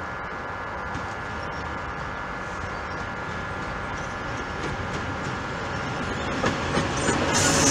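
2TE116K two-section diesel locomotive approaching, its steady running noise growing louder as it nears. In the last two seconds wheels click over rail joints, and just before the end the sound jumps sharply louder as the locomotive comes up close.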